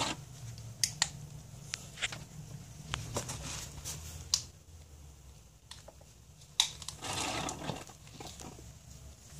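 Plastic bottle of Slime tube sealant squeezed by hand to push the sealant through a tube into an electric unicycle's tyre valve: scattered clicks and crackles of the plastic, with a longer rustling burst about seven seconds in.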